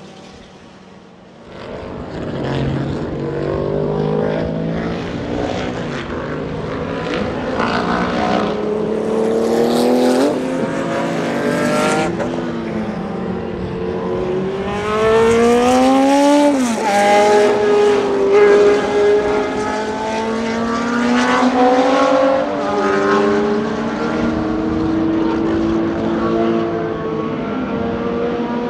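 Ligier JS2's Cosworth DFV V8 racing engine accelerating through the gears: the engine note builds up about a second in, then climbs in pitch and drops back sharply at each upshift, several times.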